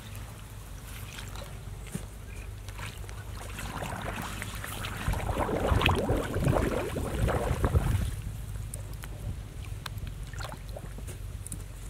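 Hands splashing and sloshing in shallow pond water, building up about four seconds in and loudest for a few seconds in the middle before easing off, over a steady low rumble.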